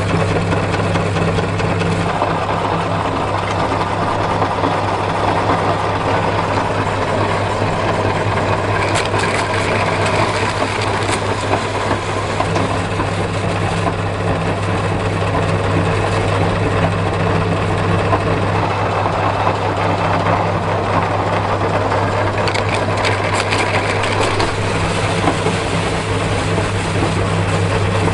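Motor-driven meat grinder running steadily with a low hum, its auger crushing hard cookies through the cutting plate with a continuous gritty crunching. Brief clusters of sharper cracks come about nine seconds in and again a little after twenty seconds.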